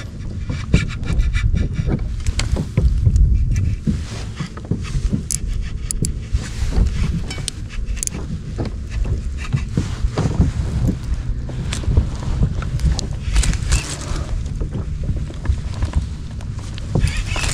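Wind rumbling on a chest-mounted action camera's microphone, with scattered irregular knocks and clicks from gear and handling on a fishing kayak.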